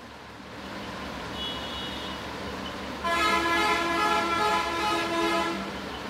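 A vehicle horn sounds one long steady blast of about two and a half seconds, starting about three seconds in, over a low background hum.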